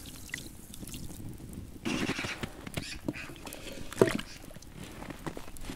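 A beef shin bone being lowered into a large metal pot of water: a short rushing noise about two seconds in, then a sharp knock, the loudest sound, about four seconds in, with a few faint clicks around it.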